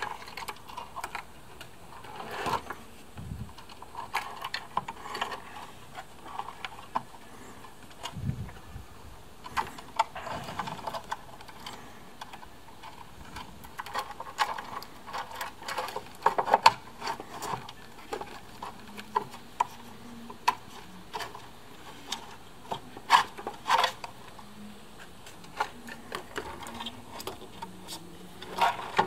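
Irregular clicks, small knocks and rustling of hands fitting the battery pack and its wiring into an electric scooter's deck, with a few sharper clicks now and then.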